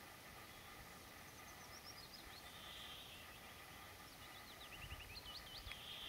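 Faint song of a small songbird, which the uploader takes for a woodlark. A quick descending run of clear, high, whistled notes comes about a second in, and another run of repeated short notes comes near the end, over a steady faint background hiss.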